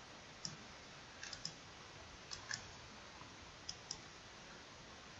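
Computer mouse buttons clicking: about eight faint, sharp clicks, several in quick pairs, over a low steady hiss.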